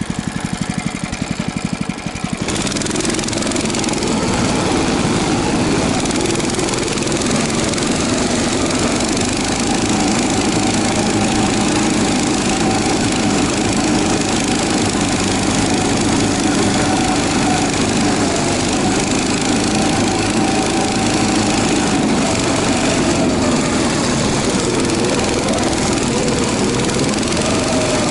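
Albatros motodog's engine idling for a couple of seconds, then throttled up sharply and running steadily under load as the tracked towing unit pulls a sled, with the engine note wavering slightly near the end.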